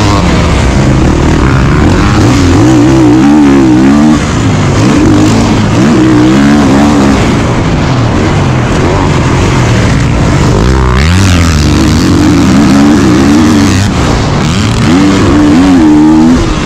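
Kawasaki KX450 motocross bike's four-stroke single-cylinder engine under race throttle, its revs rising and falling again and again as the rider rolls on and off the throttle and shifts.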